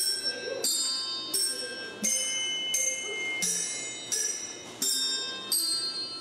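Bell sculpture chiming a slow melody in the style of good old Japanese songs: one struck bell note about every two-thirds of a second, each left ringing.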